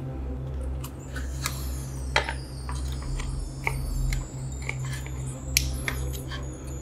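Scattered small clicks and light metallic taps, some ringing briefly, over a steady low hum.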